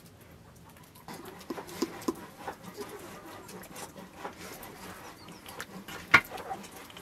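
Knife cutting into a raw whole turkey on a metal tray: scattered small clicks and knocks from about a second in, with one sharp, loud knock about six seconds in.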